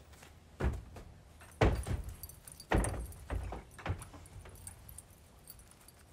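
A horse's hooves thudding on a horse trailer's floor as it steps up and walks in: five heavy thumps with lighter knocks between, the loudest a second and a half to three seconds in.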